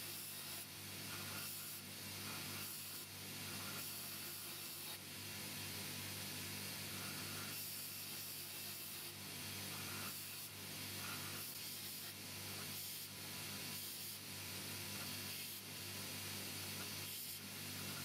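Abrasive being rubbed back and forth over the rusty metal of an old hammer, in repeated strokes, over a steady low hum.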